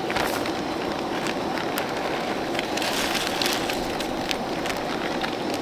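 Butter-and-flour roux sizzling as it browns in a pot: a steady hiss scattered with many small pops and crackles.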